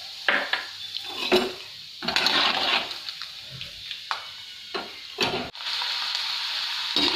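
Raw peanuts frying in hot oil in a steel kadhai, sizzling, with several sharp clicks or knocks scattered through. The sizzle grows steadier and louder from a little past halfway.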